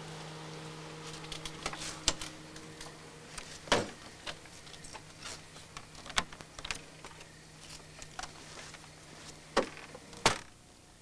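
Irregular clicks and knocks, a few of them sharp and louder, over a steady low hum that carries a couple of higher tones for the first few seconds.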